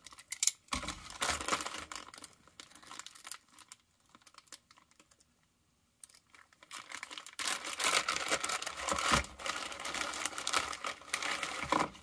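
Clear plastic zip-lock bag crinkling and rustling as hands pull it open and take parts out. The crinkling comes in two spells, with a near-silent pause of about three seconds between them.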